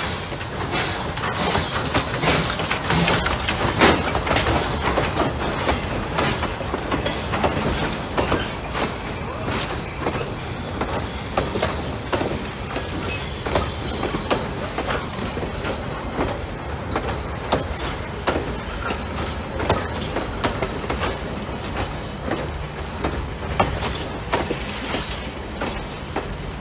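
Steam locomotive and wooden-bodied passenger coaches rolling slowly past across a steel truss railroad bridge, the wheels clattering over the rail joints in a steady run of sharp irregular clicks and knocks over a low rumble. It is loudest in the first few seconds as the locomotive goes by, then carries on as the coaches pass.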